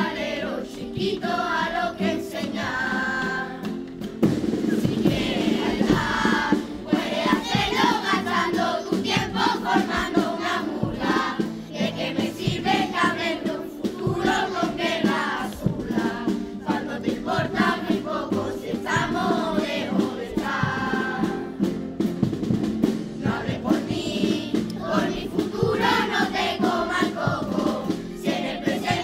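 A children's chorus singing a carnival pasodoble together to guitar accompaniment; the singing gets louder about four seconds in.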